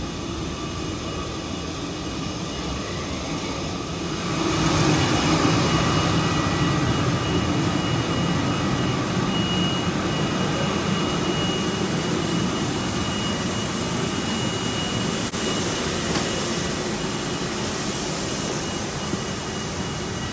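Steady whine and rushing air of a parked jet airliner heard at the aircraft door. The level jumps up about four seconds in and then holds, with thin high whining tones over the rush.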